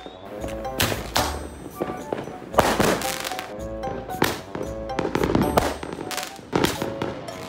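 Fireworks going off in a series of sharp, irregular bangs as a handheld firework tube fires shells that burst overhead, heard over background music.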